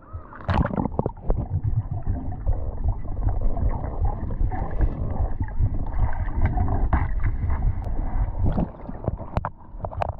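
Water gurgling and sloshing around the microphone, muffled and low, with a heavy rumble and scattered small knocks, as the camera moves through shallow sea water.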